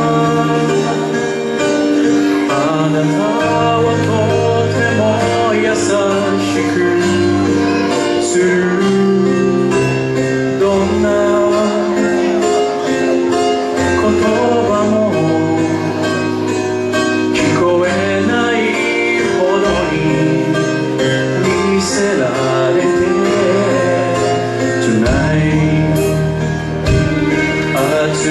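A man singing a song into a handheld microphone over a karaoke backing track.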